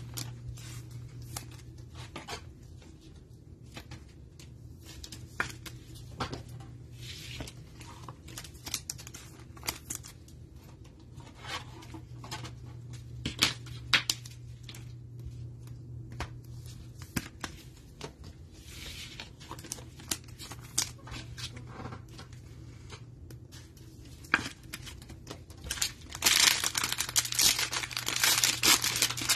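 Light rustling and clicking of trading cards and clear plastic card sleeves handled with nitrile gloves, then near the end a loud, dense crinkling and tearing of a cello pack's plastic wrapper being ripped open.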